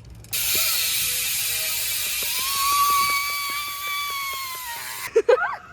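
Profile Racing Elite BMX rear hub buzzing loudly as the rear wheel spins freely. Its pawl rattle slowly falls in pitch as the wheel loses speed, then cuts off abruptly about five seconds in.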